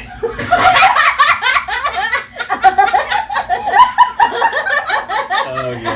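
People laughing loudly together, hard and at length, with the laughter dying down near the end.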